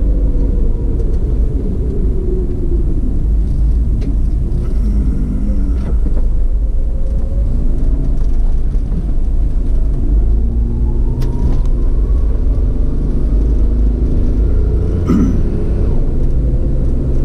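A motor vehicle on the move, heard from a GoPro mounted on it: a steady loud low rumble of engine and wind, with the engine note rising and falling as speed changes. There is a short knock or clatter about 15 seconds in.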